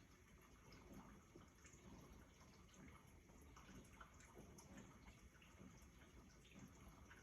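GE dishwasher filling with water early in its cycle: faint, irregular trickling and dripping inside the tub.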